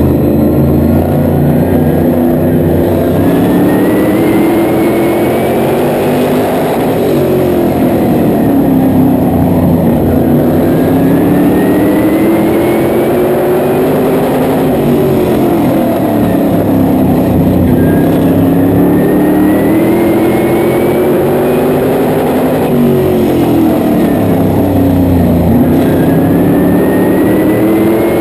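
Modified race car engine heard from inside the cockpit at racing speed, its pitch climbing for several seconds and then falling, about four times, lap after lap around the oval. A faint whine rises with each climb.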